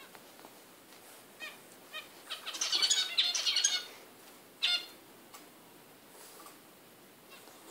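English bulldog puppy squealing and yipping in high-pitched bursts while he wrestles with his bed. A couple of faint squeaks come first, then a loud rush of squeals for about a second and a half, then one more sharp yip.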